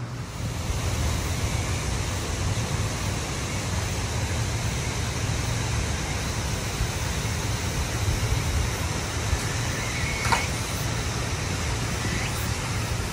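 Steady outdoor rushing noise with wind rumbling on the microphone. A brief high chirp comes about ten seconds in, and a fainter one near the end.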